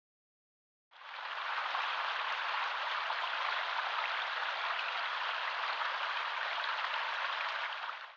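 A steady hissing noise fades in about a second in and stops abruptly at the end.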